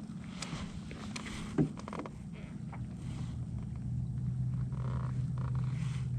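Boat motor humming steadily, getting louder in the second half, with a few light clicks and one sharp knock about a second and a half in.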